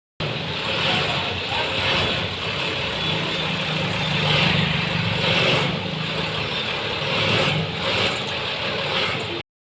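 Heavy diesel machinery running steadily, an engine hum under a loud mechanical hiss and clatter, with short silent cuts at the very start and end.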